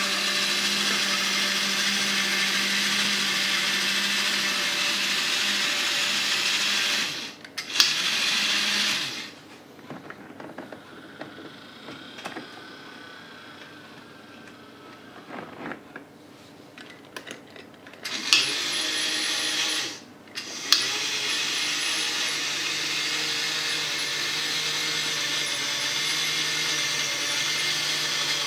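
Fleischmann 1780 model railway turntable's electric drive whirring with a steady buzzing hum as the bridge rotates, stopping briefly twice in the first third. A quieter stretch follows while the Mehano 5102 model diesel locomotive's small motor runs it onto the bridge, then the turntable drive starts again with sharp clicks and keeps whirring at a slightly lower hum as it turns the locomotive.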